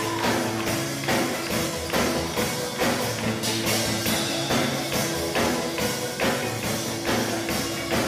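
Steel drum band playing live, steel pans ringing out a tune over a drum kit keeping a steady beat.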